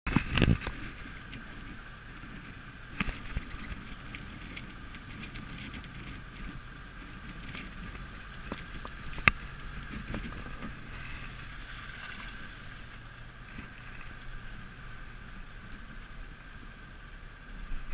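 French military jeep driving along a lane: steady engine and road noise, with a few sharp knocks, the loudest about nine seconds in.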